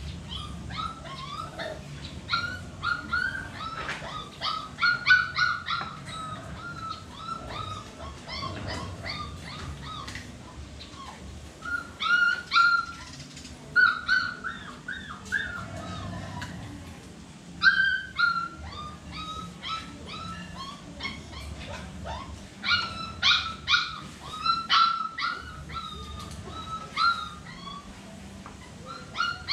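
Phu Quoc ridgeback puppies whimpering and yipping: many short, high-pitched cries coming in clusters with brief quieter gaps.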